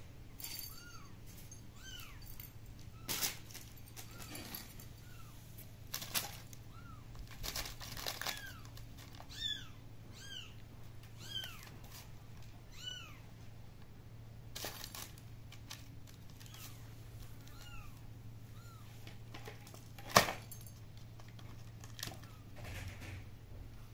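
A kitten mewing over and over in short high calls, about one a second, with scattered knocks and clatter; the loudest, a sharp knock, comes about twenty seconds in.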